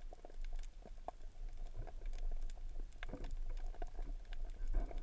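Underwater sound heard through a GoPro's waterproof housing: a low, muffled rumble with scattered sharp clicks and crackles, and a couple of louder muffled bursts of water movement about three seconds in and near the end.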